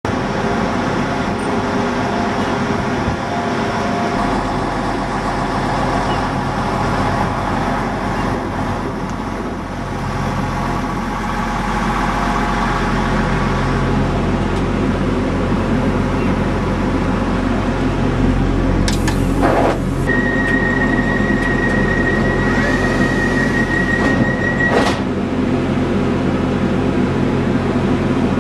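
Class 175 diesel multiple unit's underfloor diesel engine running steadily, heard from inside the door vestibule. About two-thirds of the way through, a knock is followed by a steady high warning tone lasting about five seconds as the sliding doors close, ending in another knock.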